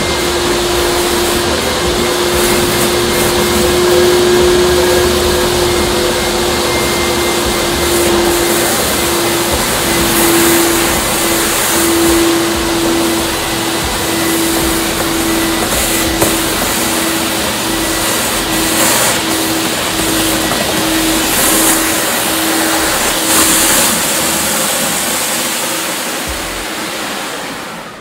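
Wieland VacPro 16 industrial vacuum, driven by three 1.2 kW blowers, running steadily with a constant whine while its wand sucks dirty water and sand from a basin. Surges of hiss come every few seconds as water and air rush into the wand, and the sound dies down near the end.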